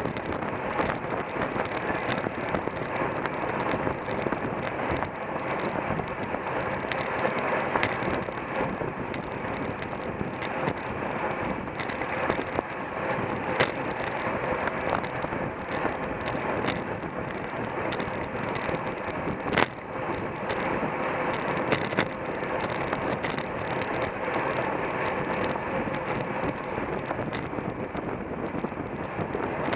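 Steady road and wind noise from a racing bicycle in motion, heard from a camera riding on the bike, with frequent short clicks and rattles throughout.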